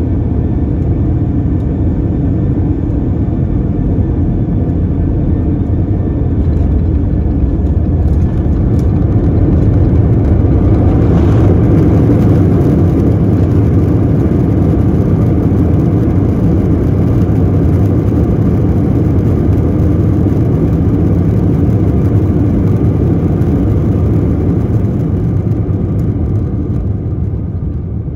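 Airbus A321ceo cabin noise during arrival: a loud, steady rumble of engines and airflow that swells about ten seconds in and eases near the end.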